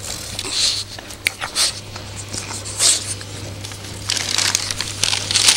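Paper bag crinkling and rustling as a dog pushes her head into it, in irregular bursts that grow denser near the end.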